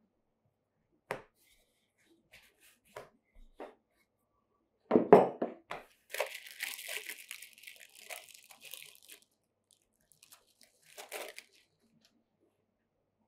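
Plastic wrapping crinkling and tearing for about three seconds as it is peeled off a slice of cheese. Before it, a few light knocks and one louder thump on a wooden board.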